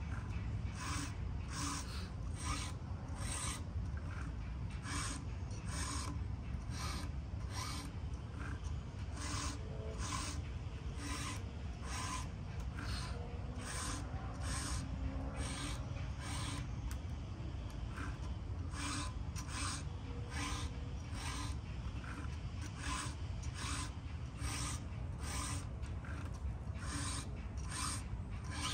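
A hand file rasping on metal or wood in steady, even strokes, a little more than one a second, with a short pause a little past halfway.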